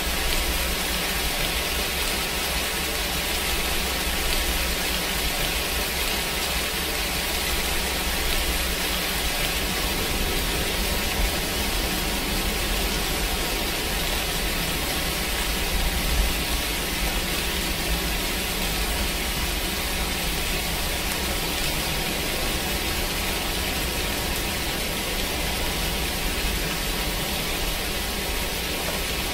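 Steady, even rain-like hiss with no breaks: the masking noise bed of a subliminal track, under which affirmations are layered.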